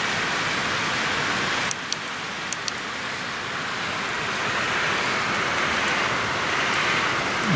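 Steady rain hiss, with a few sharp clicks about two seconds in.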